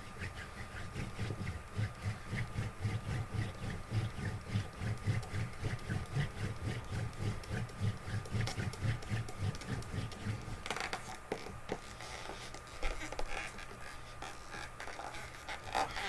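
A wooden hand-drill spindle spun back and forth between the palms in a fireboard, giving rhythmic friction strokes about two to three a second. The strokes stop about ten seconds in, followed by a few light clicks and taps.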